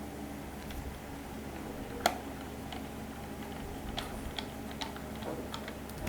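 Faint scattered clicks and taps from handling laptop parts and screws during reassembly, with one sharper click about two seconds in, over a steady low hum.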